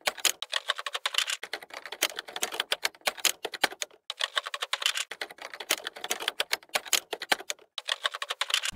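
Typing sound effect: rapid, irregular key clicks, with short pauses about four seconds in and near the end.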